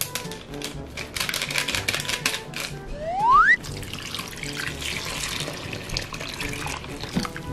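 Powdered sauce mix shaken from a packet into a wooden bowl, a quick patter of clicks, then a short, loud rising whistle about three seconds in, followed by water poured steadily from a glass measuring cup into the bowl. Background music plays throughout.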